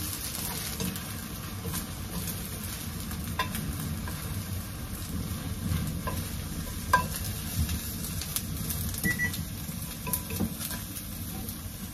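Beaten eggs sizzling and frying in a wok over a gas flame as they are stirred and folded with wooden chopsticks and a wooden spatula. Scattered light clicks of the utensils against the pan, the sharpest about seven seconds in.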